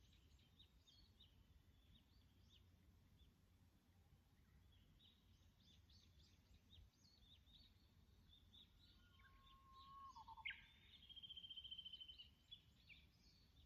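Wild birds calling, with many short high chirps throughout. About two-thirds of the way in comes a held low whistle, followed by a rapid high trill lasting over a second, the loudest part.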